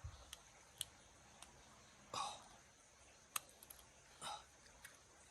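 Mostly quiet, with scattered faint clicks and two brief louder scraping sounds, about two and four seconds in, from small metal engine parts being handled and fitted.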